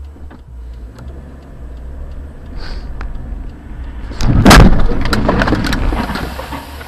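Low engine and road rumble inside a car as it pulls away from a stop, then a loud car crash about four and a half seconds in, followed by a few seconds of clattering and noise that slowly dies down.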